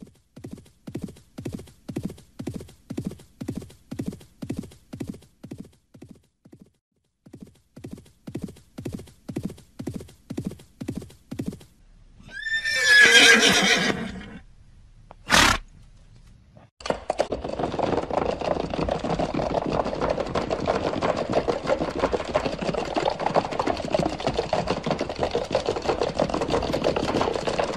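Horse hooves clip-clopping in an even beat, about two and a half strikes a second with a short break partway, then a horse neighing once. After a brief sharp sound, a dense steady noise takes over for the last ten seconds, louder than the hoofbeats.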